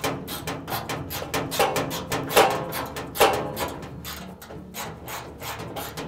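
Socket wrench with a 3/8-inch socket and extension tightening a washer's top-cover bolts from inside the cabinet: a rapid, uneven run of clicks with a few louder knocks.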